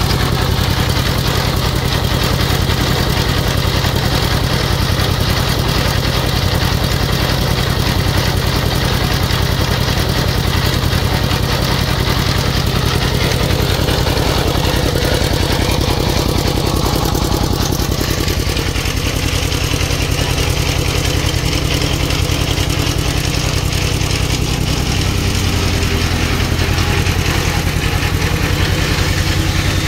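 Single-cylinder diesel engine running steadily at an even, rapid beat while belt-driving a generator head to make power.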